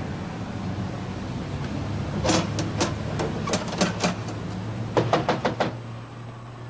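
Knuckles knocking on a front door: a few knocks, a short pause, more knocks, then a quicker run of about six knocks, over a steady low hum.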